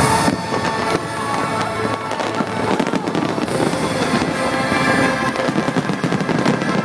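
Large fireworks display going off: a dense, continuous run of bangs and crackling from bursting shells.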